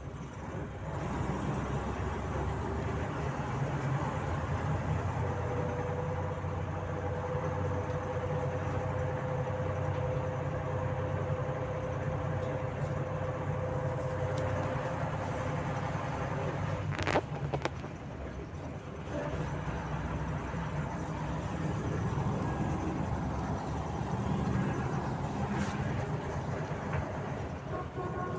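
Inside a Volzhanin-5270 city bus under way: a steady low rumble of the engine and road noise, with a whining tone held for about ten seconds in the first half. A single sharp knock comes a little past halfway.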